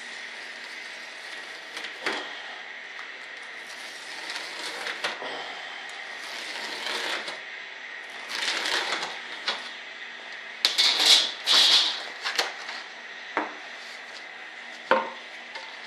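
Hands working a sheet of model-building material on a workbench: a run of irregular scraping and rustling strokes, the loudest two about two-thirds of the way through, over a faint steady hum.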